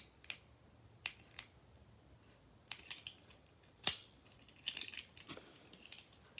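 Car keys and key fobs being handled: scattered light clicks and clinks, the sharpest just before four seconds in.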